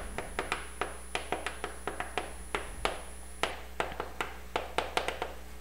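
Chalk writing on a chalkboard: a run of short, sharp taps several times a second as letters are stroked out by hand.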